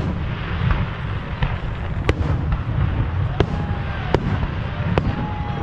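Aerial fireworks bursting: a string of sharp bangs, roughly one a second, over a steady low rumble.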